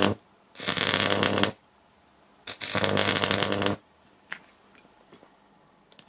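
Microwave oven transformer powered up three times for about a second each with its high-voltage secondary shorted through a thin wire: a loud buzzing hum with the harsh crackle of the wire end burning. A few faint clicks follow.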